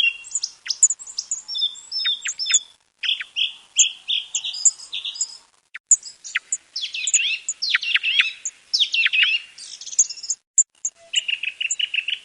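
Song thrush singing: a run of varied phrases of sharp whistled and chattering notes, each phrase repeated several times, with a few brief pauses between phrases.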